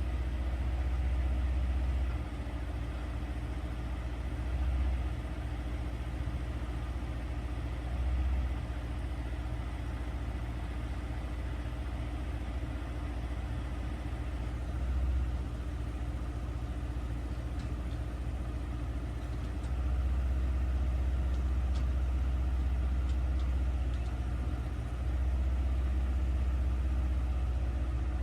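Engine of a piece of construction equipment idling steadily. It swells briefly a few times and runs louder through the last third.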